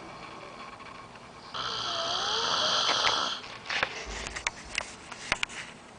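A man snoring in deep sleep: one loud, noisy snore starts about one and a half seconds in, lasts about two seconds and stops abruptly. It is followed by a scatter of short clicks.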